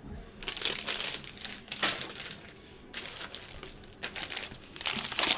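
Plastic bags of soft-plastic fishing worms crinkling as they are handled, in several irregular bursts, heaviest near the end.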